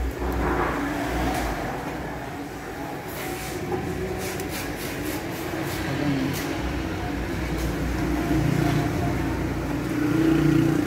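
Steady low rumble of a motor vehicle running nearby, growing a little louder near the end, with a few light clicks mixed in.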